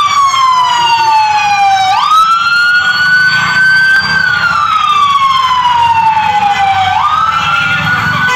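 An emergency vehicle's siren wailing. Its pitch jumps up quickly about two seconds in and again near the end, then sinks slowly over about three seconds each time. A low rumble runs underneath.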